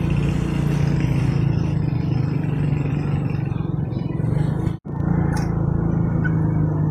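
Motorcycle engine running steadily while riding, with wind and road noise. The sound cuts out for an instant about five seconds in.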